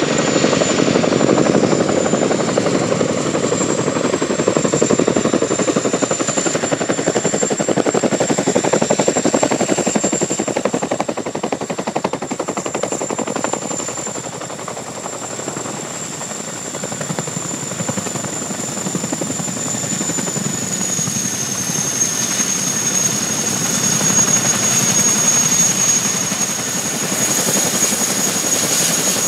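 CH-47 Chinook tandem-rotor helicopter in a low hover and settling onto the runway. Its two rotors chop with a fast, even blade slap over the steady high whine of its twin turboshaft engines. The whine drops slightly in pitch about two-thirds of the way through.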